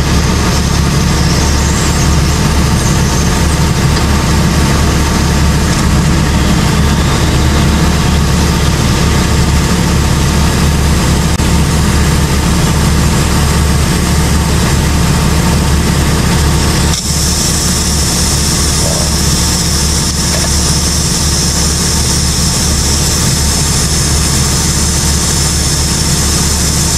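A tire being pumped up through an air chuck on its valve stem, air hissing steadily, over the steady low hum of an idling engine. About two-thirds of the way through the flow briefly stops and starts again with a brighter, higher hiss. The tire is being refilled after losing air at the bead.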